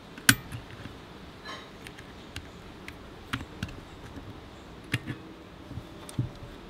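Scattered sharp clicks and taps as needle-nose pliers work the return springs and shoes on a scooter's front drum-brake panel, the loudest click just after the start.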